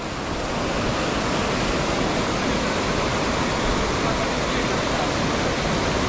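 Steady rush of a river's white water pouring over the top of a waterfall, close by.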